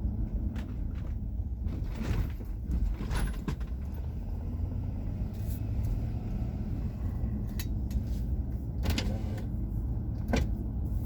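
Car running, heard from inside the cabin: a steady low engine and road rumble, with a few short clicks or knocks.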